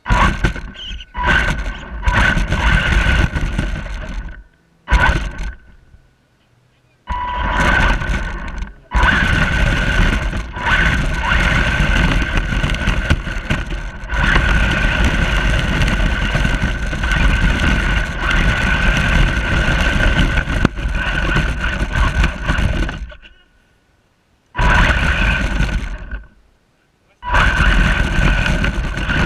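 Radio-controlled truck running, with a steady high whine over a noisy rush, in long stretches that cut off abruptly and start again several times.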